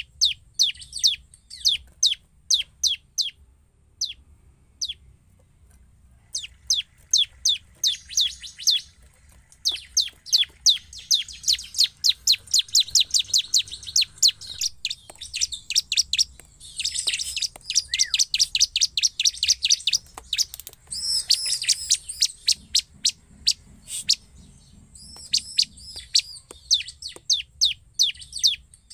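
Bar-winged prinia (ciblek) calling in long series of sharp, high, quickly falling chips, a few a second, packed into dense fast runs midway. There is a brief pause about five seconds in.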